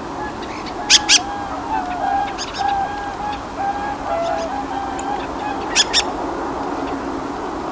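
Dusky thrush calls: two pairs of sharp, very short notes, about a second in and again near six seconds, over a continuous chatter of lower, wavering calls from other birds.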